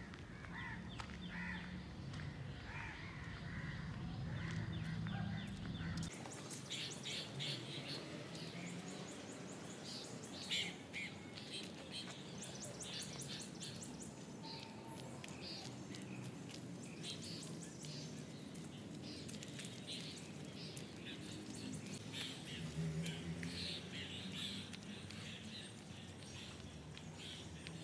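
Many birds chirping and calling together, a dense chorus of short, high chirps. A low steady hum runs under the first few seconds.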